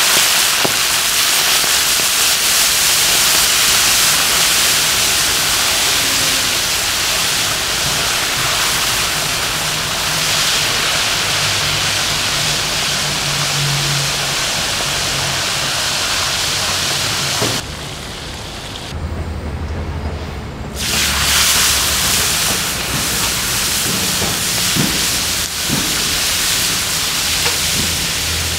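Mantis shrimp deep-frying in a wok of hot oil: a loud, steady sizzle and hiss. It drops away for a few seconds about two-thirds through, leaving a low hum, then comes back.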